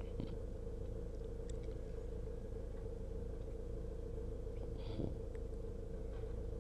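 Engine idling steadily, heard from inside the vehicle's cab, with a single light knock about five seconds in.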